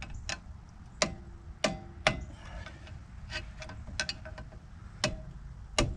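Thin metal tool poked through the access hole of a rear brake rotor, clicking against the parts inside: about nine irregular sharp clicks, some with a brief metallic ring.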